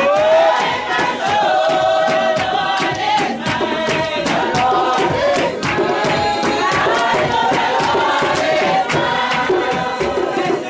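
A congregation singing a hymn together, many voices at once, over steady rhythmic hand clapping.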